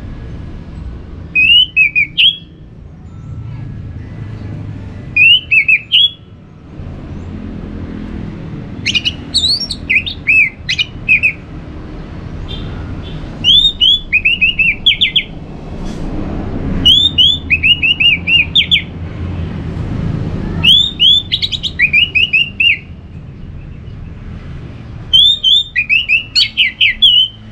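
Orange-headed thrush singing: short, rapid phrases of high chirping, sliding notes, one phrase roughly every four seconds, over a steady low background rumble.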